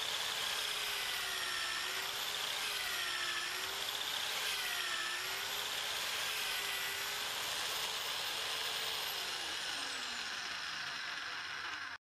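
Drill-driven hole saw cutting through plywood: a steady motor whir with rasping cutting noise. The pitch dips and recovers several times as the saw bites under load, then winds down near the end.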